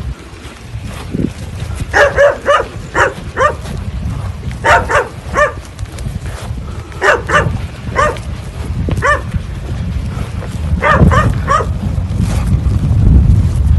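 A dog barking in quick runs of three to five short barks, a few seconds apart, over a low wind rumble on the microphone.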